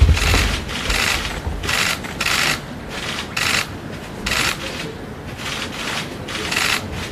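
Press photographers' camera shutters firing in rapid bursts, short rattles of clicks following one another with brief gaps, with a low thump at the very start.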